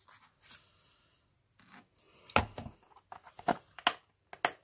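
A series of short, sharp clicks and taps, about six of them, the loudest about two and a half seconds in and near the end, as small sewing items are handled on an ironing board: dressmaking pins and a plastic bias-tape-maker case.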